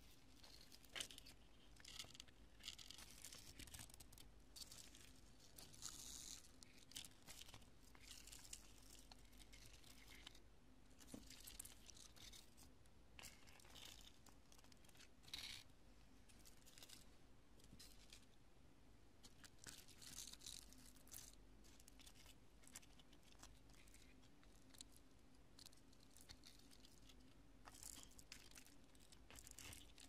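Fingers crushing pieces of cured construction foam: crunchy, sticky crackling that comes in irregular bursts with short pauses between them.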